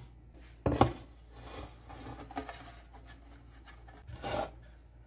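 Aluminium baking tin being handled while cinnamon-roll dough slices are laid into it: one sharp knock about a second in and a second, softer clatter near the end.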